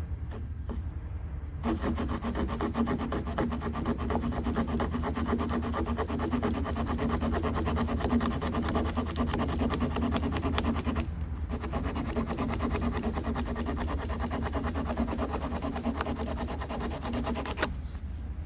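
Small folding multitool saw cutting softwood in quick back-and-forth strokes, starting a couple of seconds in, pausing briefly about eleven seconds in, then sawing again until shortly before the end. A steady low rumble runs underneath.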